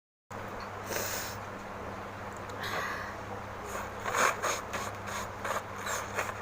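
A person blowing her nose into a handkerchief: two noisy blows, then a quicker run of short blows from about four seconds in, over a steady low hum.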